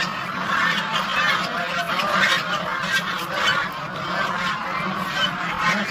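A flock of domestic geese calling and honking without a break, many voices overlapping.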